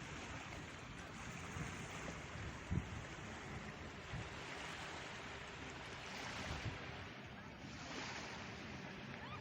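Sea waves washing onto the shore, a steady surf wash that swells louder twice in the second half, with some wind on the microphone.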